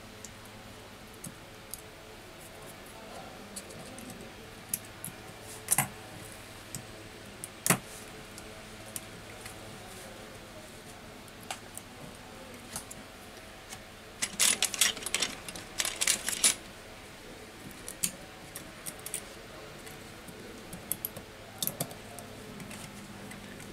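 Small metal parts of an iPhone 6s Plus clicking and tapping as the logic board and metal shield brackets are handled and seated in the phone's aluminium housing. There are a few sharp single clicks, and a quick run of clinks about two-thirds of the way through, over a faint steady hum.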